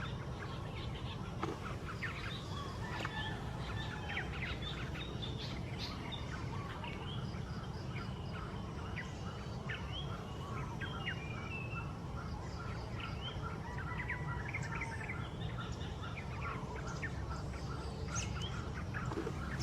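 Yellow-vented bulbuls calling: many short, overlapping chirps and whistled notes throughout, over a steady low rumble.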